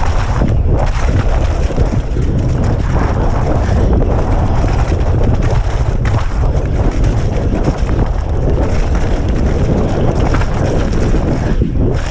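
Wind buffeting the microphone of a rider-mounted camera on a mountain bike descending a rough dirt trail at speed, with the continuous rattle and rumble of the bike and tyres over the ground.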